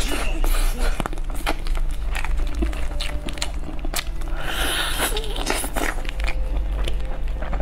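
Close-miked eating of a roast chicken: biting and chewing the meat, with crackling and tearing as the skin and flesh are pulled apart by gloved hands. A steady low hum runs underneath.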